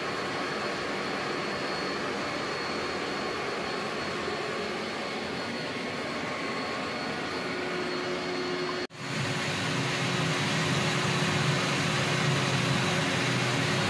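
Hyla water-filter vacuum cleaner running steadily in air-purifying mode with no hose fitted: an even motor rush with a faint high whine and a low hum. It drops out for an instant about nine seconds in, then runs on a little louder.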